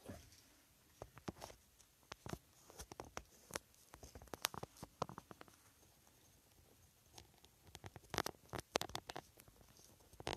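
Handling noise from a hand-held phone camera being moved and repositioned: faint, irregular clicks, taps and rubbing in clusters, with a short lull in the middle.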